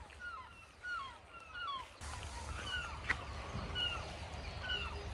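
Birds calling: a run of short cries that slide downward in pitch, several a second at first and more spread out later, over a low steady rumble. A single sharp click sounds about three seconds in.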